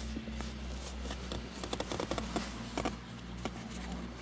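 Hands handling a leather gear gaiter on a car's gear lever: soft rustling with a scatter of small clicks and ticks, over a steady low hum.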